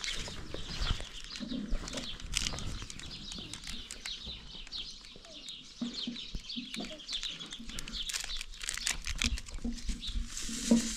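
Birds chirping, with small clicks and rustles of a plastic drink-powder packet being handled close by.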